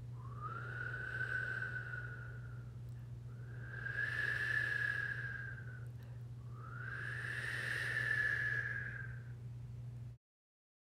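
Howling snowstorm wind: three long whistling gusts, each rising at the start and then holding, over a steady low hum.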